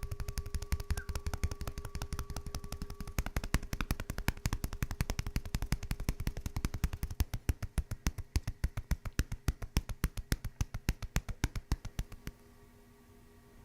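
Handheld chiropractic adjusting instrument tapping rapidly and evenly, several clicks a second, then stopping abruptly about twelve seconds in.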